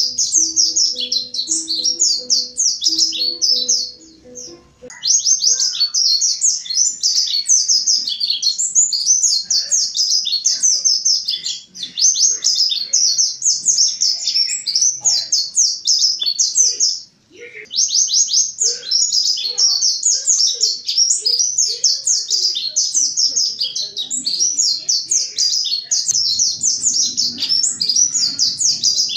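Mountain white-eye (pleci montanus, Zosterops montanus) singing a fast, high, unbroken chattering song of rapid chirps in loud, active song. It pauses briefly twice, about four and seventeen seconds in.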